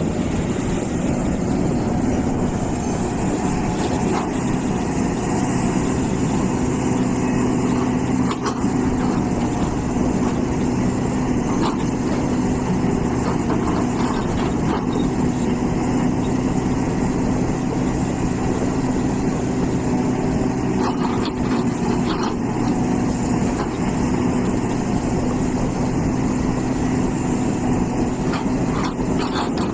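Hitachi EX450 excavator's diesel engine running steadily, a constant hum, with a few short knocks scattered through.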